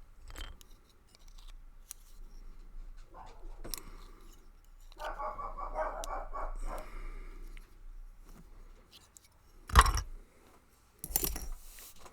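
Small metallic clicks and scrapes of tools and parts being handled while a Lockwood brass padlock's core is taken apart pin by pin, with two sharp knocks near the end.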